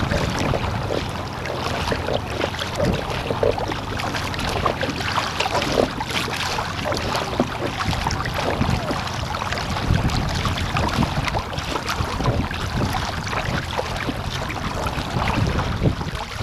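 Choppy water slapping and splashing against the hull of an Epic V8 surfski under way, with wind buffeting the microphone. The splashes come in quick, irregular spatters over a steady rush of noise.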